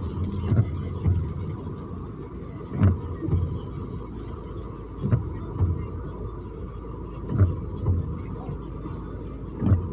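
Windshield wipers working on a rain-wet windshield: two soft thumps about half a second apart, repeating roughly every two and a half seconds, over the steady low rumble of the car idling.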